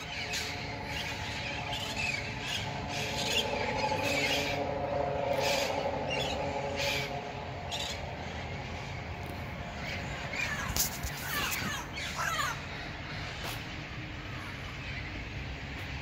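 Feral parrots squawking in short, harsh calls scattered throughout, with a cluster of calls about two-thirds of the way in. Underneath, a vehicle engine hums steadily, loudest in the first half.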